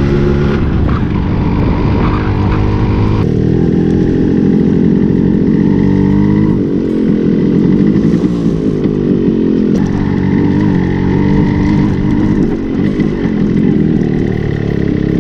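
Motorcycle engine running under way, heard from the rider's seat, its note rising and falling as the bike changes speed.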